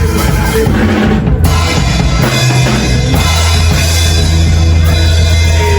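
Loud band music driven by a drum kit, with bass drum and snare over a heavy, sustained bass line.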